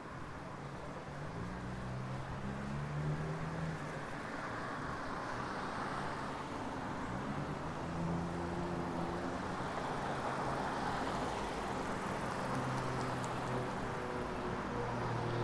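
City street traffic: motor vehicles running and passing, with a low engine hum under the swelling noise of tyres and traffic, growing slowly louder.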